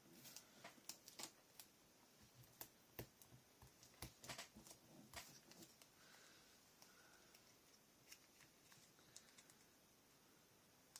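Faint, scattered light taps and paper rustles of paper craft pieces being handled and pressed down on a scrapbook page, thickest in the first half and thinning out later.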